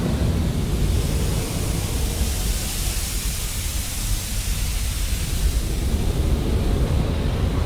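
Flamethrower sound effect: a continuous fire blast, a dense steady rush of flame with a deep low rumble and the hiss of pressurised gas over it.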